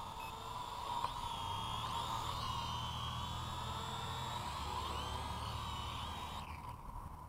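Propel Orbit HD toy quadcopter's four small motors and propellers whining steadily as it descends on auto-land, the pitch wavering slightly. The whine stops about six and a half seconds in as the drone settles on the ground.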